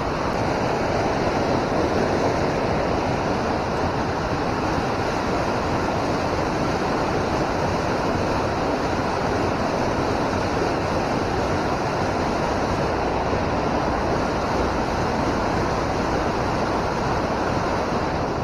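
Loud, steady rush of flowing river water, an even noise without breaks.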